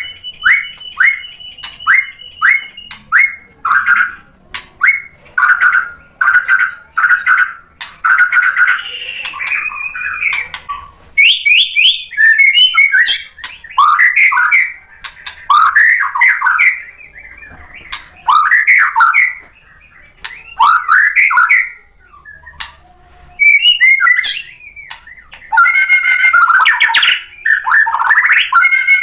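Male white-rumped shama (murai batu) singing loudly in a long, varied song. It opens with a held high note over quick repeated short notes, then moves into rising and falling whistled phrases about once a second, broken by sharp clicking notes.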